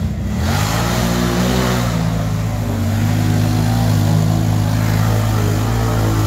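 ATV engine revving up about half a second in, then held at high revs under load as the quad ploughs through deep mud.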